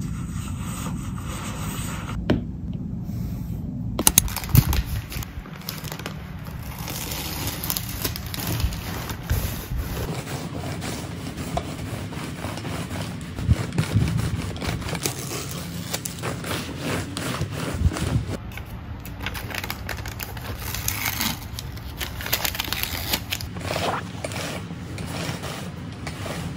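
Kitchen utensils scraping and rubbing, with scattered sharp knocks and clicks throughout.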